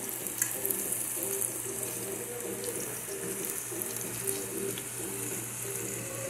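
Plantain slices and potatoes deep-frying in hot oil, a steady sizzle. A couple of light clicks come as a utensil moves the slices in the pan.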